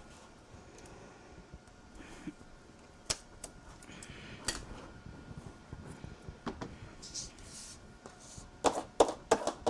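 Paper and adhesive tape being handled on a craft table: scattered light clicks and taps with brief rustles, and a cluster of louder taps near the end.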